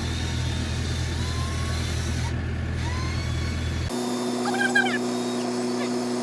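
A vehicle engine running with a steady low hum. About four seconds in, the sound cuts abruptly to a different steady hum, with short chirps over it.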